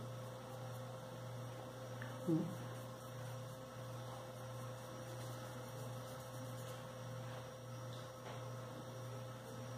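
Steady low electrical hum, with one short voice sound about two seconds in.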